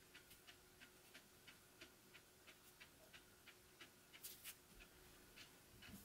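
Near silence with faint, even ticking, about three ticks a second, and two slightly louder clicks a little past four seconds in.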